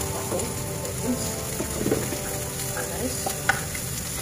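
Sliced red long beans sizzling in a nonstick frying pan while a wooden spatula stirs them, with a few soft scrapes against the pan.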